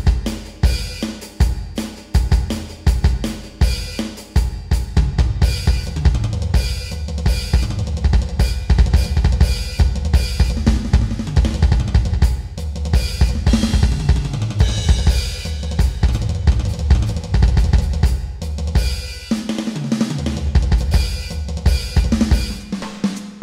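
Donner DED-200X electronic drum kit playing a steady groove of kick, snare, hi-hat and cymbals, as a drum cover over a backing song with a bass line.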